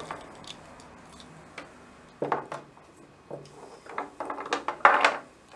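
Dismantled hand mixer parts (wiring, switch and motor armature) being set down and shuffled on paper over a wooden table: scattered clicks, light knocks and paper rustles, with the busiest, loudest run of clicks about four to five seconds in.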